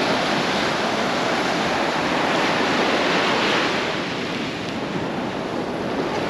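Sea waves breaking and washing up on a sandy beach: a steady rush of surf that swells about halfway through, then eases off.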